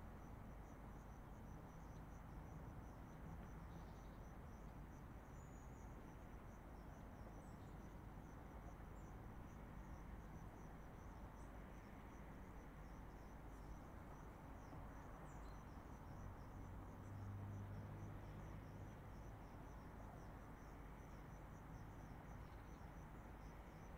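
Faint, regular insect chirping, a steady train of short high pulses, over a low steady rumble of distant highway traffic; a low hum swells briefly about two-thirds of the way through.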